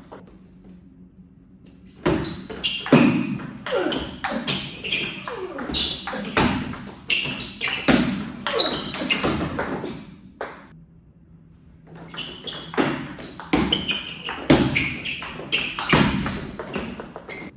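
Table tennis ball being struck back and forth, a quick run of sharp ticks as it hits the rubber-faced paddles and bounces on the table top. There are two rallies, split by a short pause about ten seconds in.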